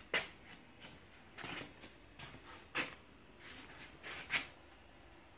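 Quiet room tone with a few soft scuffs and clicks, a second or so apart, then quiet.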